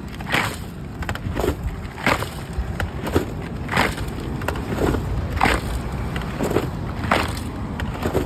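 Ice crunching and shifting inside a large burlap-wrapped clay matka as it is rocked back and forth to freeze kulfi: a crunching swish about every second and a half to two seconds, with a softer one between each, over a low steady rumble.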